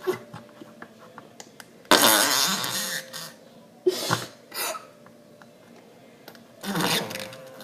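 Noise putty (fart slime) squelching in its pot as it is pressed, pushing out air in fart-like sounds: one long one about two seconds in and a shorter one near the end, with a few small squishes between.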